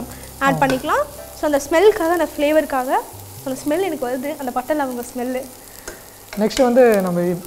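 A metal ladle stirring and scraping chopped vegetables and onion in a pan, with the vegetables sizzling as they fry in butter. The scraping gives short, wavering squeaks.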